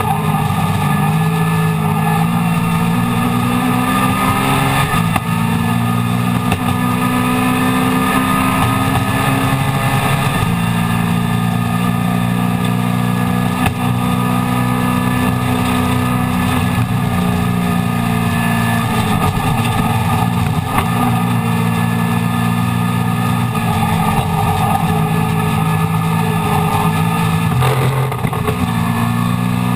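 Mini Miglia race car's A-series four-cylinder engine heard from inside the cockpit at racing speed, running loud at high revs. Its pitch dips and climbs again several times as the driver lifts and changes gear, with a long dip about two-thirds of the way through and a sharp one near the end.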